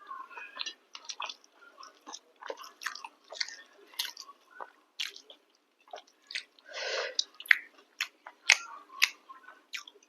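Close-miked chewing of chicken curry and chapati: a steady run of short wet smacks and clicks, with one longer, louder mouth sound about two-thirds of the way through.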